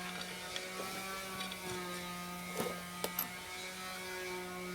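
A steady buzzing hum, with a few faint clicks about two and a half to three seconds in.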